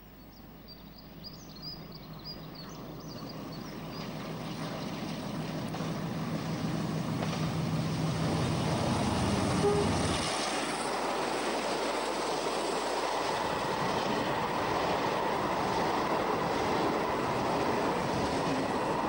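Class 47 diesel locomotive's Sulzer twelve-cylinder engine working under power as it approaches, its low, steady note growing louder until the locomotive passes close by about ten seconds in. The engine note then drops away, and the wagons of a freight train run past with steady wheel and rail noise.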